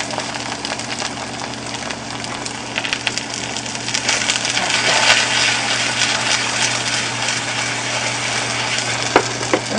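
Food sizzling and crackling as it stir-fries in a hot pan, the sizzle growing louder about four seconds in, over a steady low hum.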